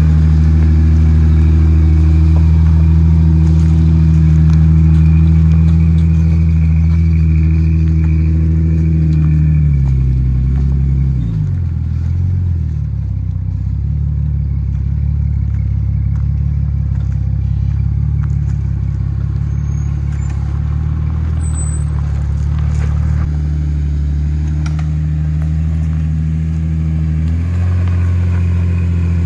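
1990 Jeep Cherokee XJ's 4.0-litre inline-six, breathing through a Flowmaster 40 Series exhaust, running steadily under load as the Jeep climbs a dirt trail. About ten seconds in the revs fall away, and the engine runs lower before picking up again in two steps near the end.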